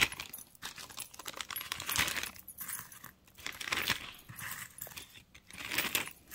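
Small metal earrings clinking and jangling against each other as they are dropped into a small plastic zip bag, in several bursts about two seconds apart.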